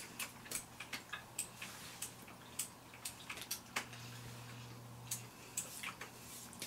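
Quiet, irregular small clicks and ticks, a few a second, from people chewing soft snack pancakes and handling a snack wrapper, over a faint low hum.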